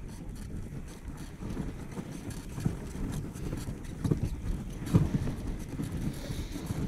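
Dog sled moving along a snowy trail: a steady low rumble with irregular knocks and jolts, the loudest about five seconds in.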